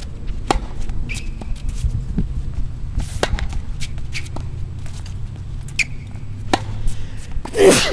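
Tennis ball struck by rackets and bouncing on a hard court during a rally: sharp pops every second or so, over a steady low hum. A few short squeaks. A loud burst near the end.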